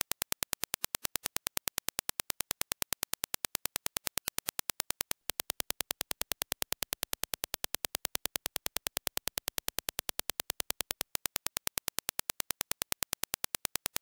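Dirac impulse test signal: a rapid, evenly spaced train of sharp clicks. About five seconds in, after a brief break, the reference impulses give way to the same impulses reproduced by the Razer BlackShark V2 Pro headset. Near the end, after another short break, the reference impulses return.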